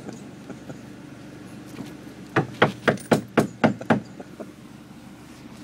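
A car's engine idling steadily, heard from inside the cabin, with a quick run of about eight sharp knocks about two and a half seconds in.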